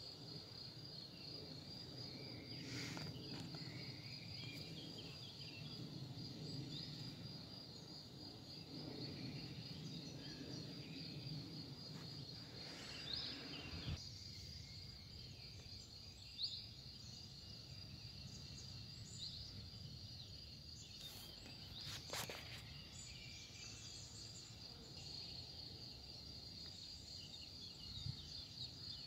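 Faint outdoor ambience: a cricket chirping steadily in a high, rapidly pulsing trill, with a few short bird chirps and a low background rumble. There are occasional soft knocks.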